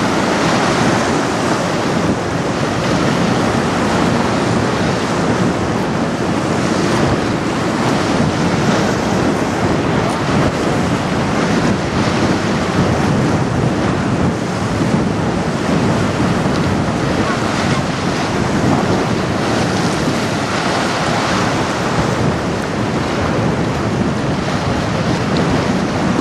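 Strong wind buffeting the microphone in a steady rush, with waves washing underneath.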